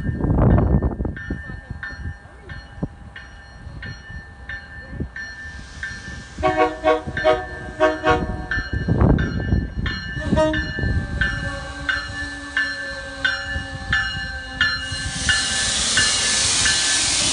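MBTA commuter train arriving with a multilevel cab car leading: its bell rings steadily about twice a second, and the horn sounds several blasts in the middle. Near the end a loud hiss builds as the train pulls in alongside.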